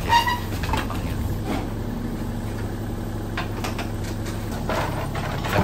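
Demolition excavator's diesel engine running steadily, with a few scattered knocks from the demolition work.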